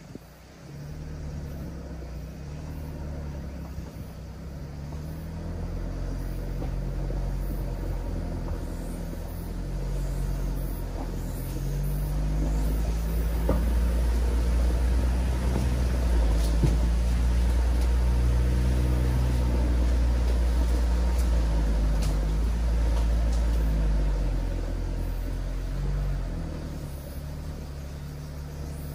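Mitsubishi Delica D:5's 2.2-litre four-cylinder turbodiesel engine running while the vehicle drives a rough forest road: a low drone whose pitch steps up and down with engine speed. It grows louder toward the middle, with a few sharp ticks.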